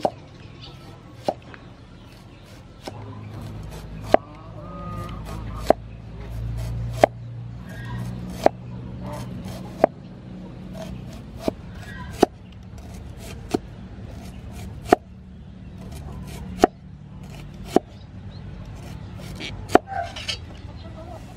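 Kitchen knife slicing red shallots on a wooden chopping board: a sharp knock of the blade on the wood about every second and a half.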